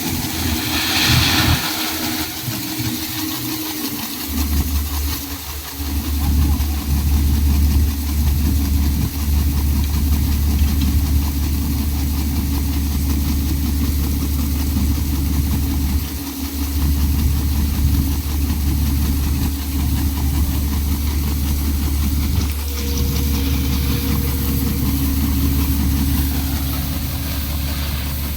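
A vehicle engine running steadily with a deep, even hum. The hum is weak for the first few seconds and settles from about four seconds in, with a short hiss about a second in.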